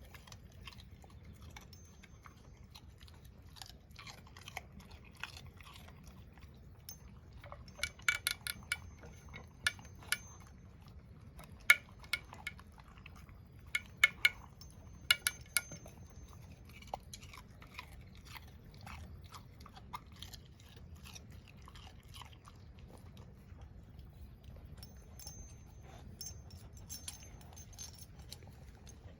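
A dog chewing and crunching food, with sharp crunches coming in short clusters and quieter pauses between them.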